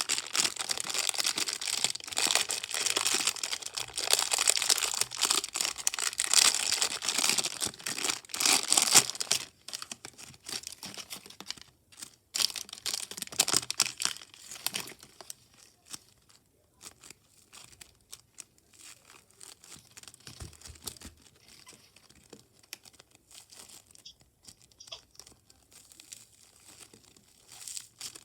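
Slime being squished, pressed and stretched by hand, giving a dense run of small sticky clicks and pops for about the first nine seconds, then sparser, quieter pops.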